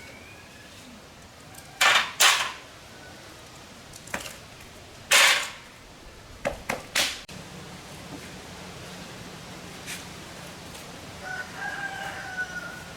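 Six short, loud bursts of hissing noise: two about two seconds in, one near five seconds, and three quick ones around seven seconds. A low steady hum comes in just after them, and a rooster crows faintly near the end.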